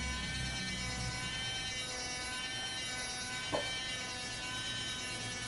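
Toy crane's small electric motor running with a steady whine, and a single click about halfway through.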